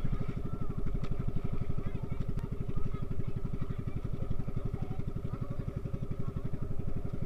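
Small engine of a motorized bangka outrigger boat running steadily under way, with a rapid, even putter, and water splashing at the outrigger.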